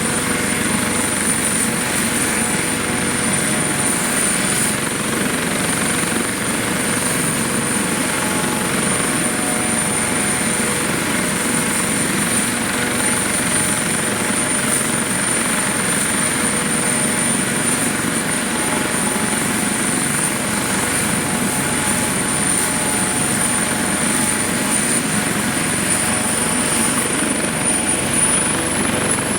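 Eurocopter AS365 Dauphin twin-turbine helicopter running steadily, with a high turbine whine over the rotor noise; the whine rises slightly near the end.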